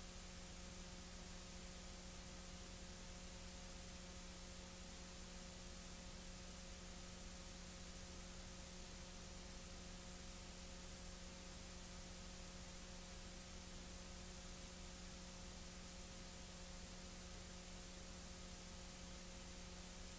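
Faint steady hiss with a low electrical hum and a few faint steady tones, unchanging, with no other sound: the noise floor of a soundless old film transfer.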